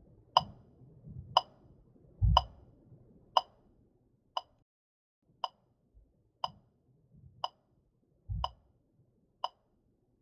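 Steady ticking, one sharp tick a second, with a few soft low thumps underneath.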